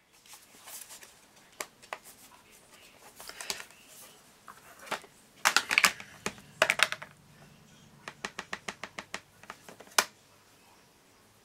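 Plastic clicks and knocks from the hard case of an embossing ink pad being handled and opened, and a clear acrylic stamp block picked up. A louder cluster of clicks comes about halfway through, then a quick run of light taps, about five a second, and one sharp click near the end.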